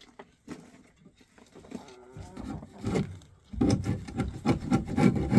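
Chicken droppings being scraped off a wooden roost bar: a run of rasping scrapes, light at first and then loud and rapid from a little past halfway.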